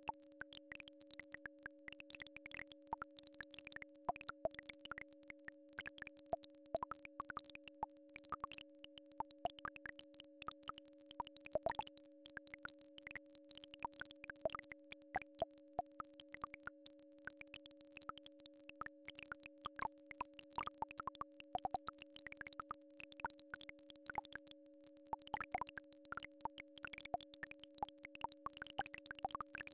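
Two steady synthesized tones, one low and one higher, held together without a break, with quick drip-like plinks of varying pitch scattered over them at irregular moments: a frequency-healing tone track of the Rife and solfeggio kind.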